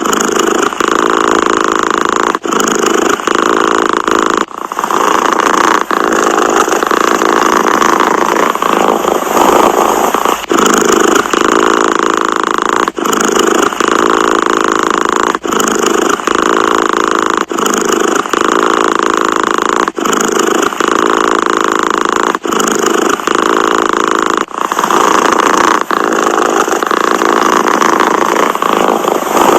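Domestic cat purring loudly and steadily, with a short break every two seconds or so as it changes breath.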